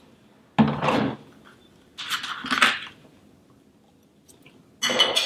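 A woman eating at a table, making three short sounds: brief hums or murmurs and mouth noises as she takes a bite. The first comes about half a second in, the second about two seconds in, and the last near the end.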